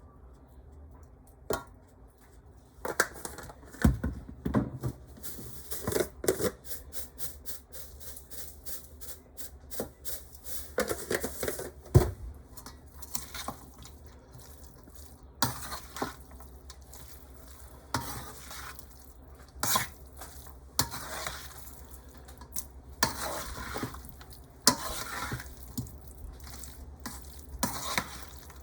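A utensil stirring and mixing potato salad with mayonnaise in a bowl: irregular knocks and scrapes of the spoon against the bowl.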